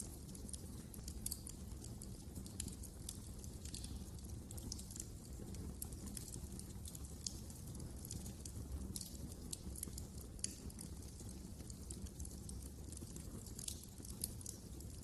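Wood fire crackling in a fireplace: frequent irregular crackles and snaps, a few of them louder pops, over a low steady rumble of the flames.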